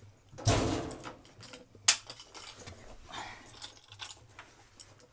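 Handling and movement noises in a small room: a rustle about half a second in, one sharp click just under two seconds in, then scattered light clicks and knocks.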